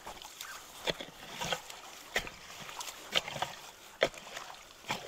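Sharp splashes and knocks, about six of them roughly a second apart, from people wading in a creek and working a log-and-brush clog at a culvert with long-handled tools, over the faint sound of flowing creek water.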